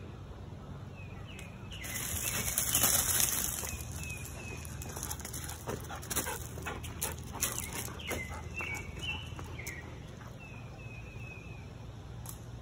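A dog making several short, sharp sounds, with small birds chirping throughout. A loud burst of hissing about two seconds in is the loudest thing.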